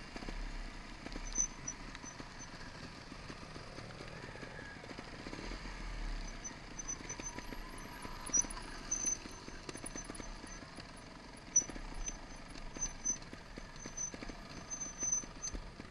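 Trial motorcycle being ridden over a rough dirt track and grass, its engine running under the noise of the ride, with irregular knocks and rattles over the bumps.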